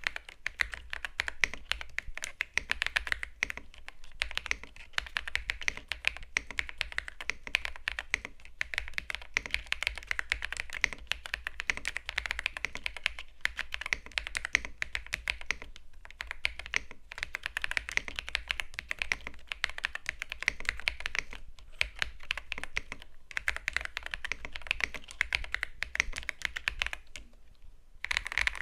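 Fast continuous typing on a mechanical keyboard, a dense run of key clacks with a few short breaks and a longer pause near the end.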